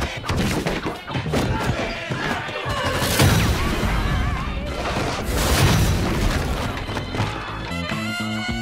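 Dramatic action score with fight sound effects: body-slam thuds and crashes, with two heavy booming hits about three seconds and five and a half seconds in. The music changes near the end.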